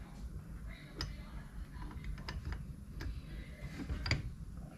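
A few light, irregular clicks and taps of jackhammer parts being handled while grease is worked along the barrel.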